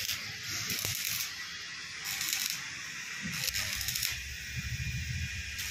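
Stick (arc) welding: the electrode arc crackling and hissing steadily as a tube nut is welded onto a hydraulic pressure pipe, swelling louder several times.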